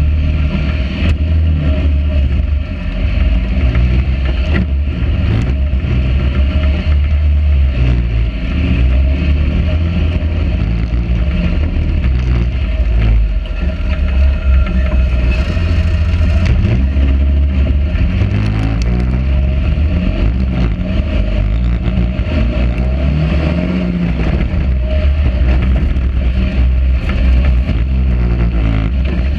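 Sand rail's engine running under throttle while driving over dunes. Its pitch rises and falls as the throttle changes, heard from a camera mounted on the buggy's nose.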